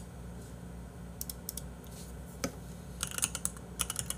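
Computer keyboard being typed on: short runs of key clicks about a second in and again in the last second or so, over a steady low hum.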